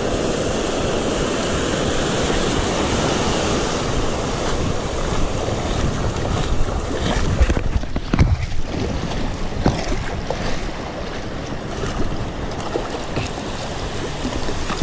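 Steady rush of surf and wind, with wind buffeting the microphone. About halfway through there is a stretch of irregular low thumps.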